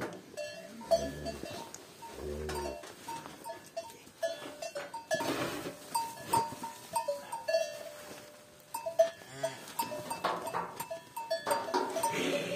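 Cattle in a pen, with short ringing bell-like notes sounding on and off throughout and two short low calls about one and two seconds in.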